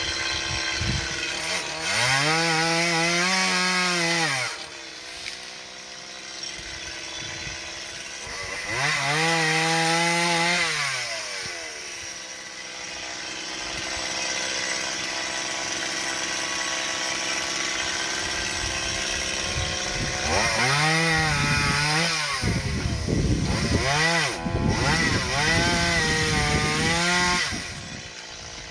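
Mini chainsaw cutting tree branches, its motor revving up in about five bursts of one to three seconds, the pitch rising, holding under the cut, then dropping back between cuts.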